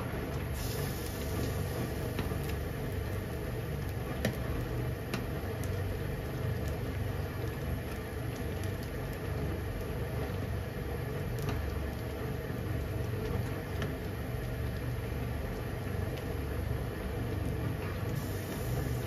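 Broth boiling hard in a frying pan over a gas burner: a steady low rumble with bubbling, and a ladle clinking lightly against the pan a few times.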